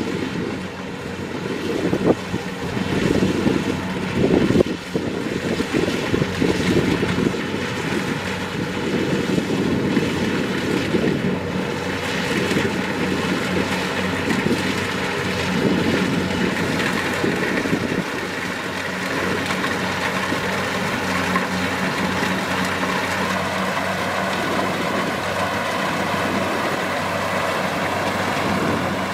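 Kubota DC-70 Plus combine harvester running steadily at work, a continuous mechanical drone of its diesel engine and machinery, with a few sharp knocks in the first five seconds.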